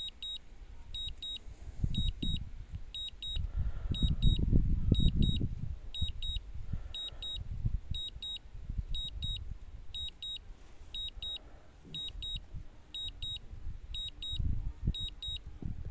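DJI Phantom 3 low-battery warning beeping: short high beeps in quick clusters, repeating about once a second, signalling that the drone's battery is low and it is returning home. A low rumble runs underneath, loudest about four to five seconds in.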